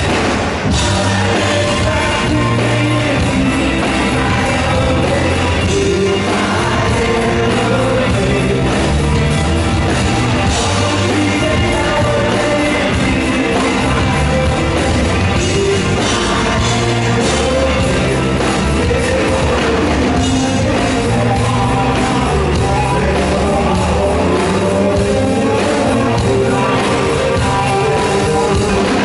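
Rock band playing live: a sung lead vocal over a moving bass line, guitar and drums, loud and steady throughout.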